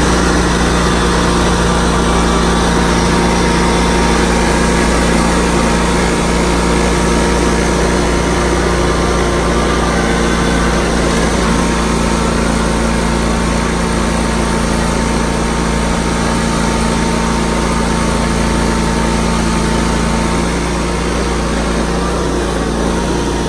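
A small lawn mower engine running steadily at a constant speed, loud and close, easing off slightly near the end.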